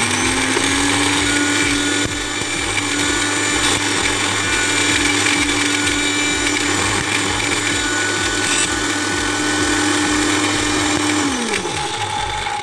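Electric countertop blender grinding dry baharat spices. The motor comes up to speed with a brief rising whine, runs steadily for about eleven seconds, then winds down in pitch near the end as it is switched off.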